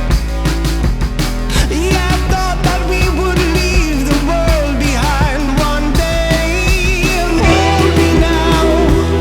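Background song: a singing voice over drums and a steady bass line.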